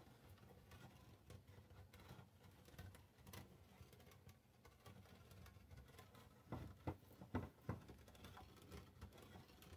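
Faint clicking and scraping of a Sencai handheld smooth-edge can opener, its rotary handle being turned and the opener shifted on a can rim, with a few sharper knocks in the second half as it is pressed back onto the can. The opener is not biting into the lid.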